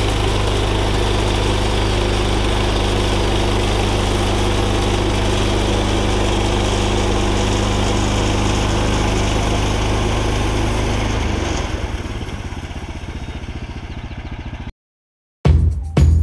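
Woodland Mills portable bandsaw sawmill engine running at full throttle while its band blade cuts through a cedar cant. About eleven seconds in, the engine drops to a quieter, pulsing idle. Near the end the sound cuts out for a moment and drum-heavy music begins.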